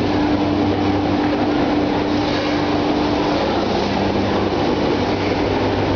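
Egg tray pulp moulding production line machinery running: a loud, steady mechanical din over a low hum, with a higher steady hum that stops about halfway through.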